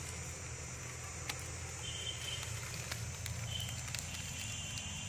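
Quiet outdoor background: a steady low rumble with a few faint dry ticks scattered through it, and short, faint high chirps of insects about two seconds in and again near the end.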